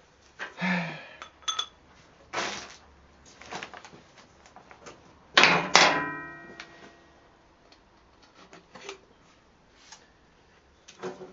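Metal bike parts and tools being handled: scattered knocks and clinks, with one loud metallic clang about five and a half seconds in that rings on for about a second.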